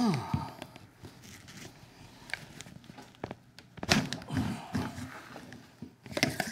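A long rod being pushed down inside a PVC cannon barrel: a tone sliding downward at the start, then scraping and hollow knocks of rod against pipe. The knocks are loudest about four seconds in and again near the end.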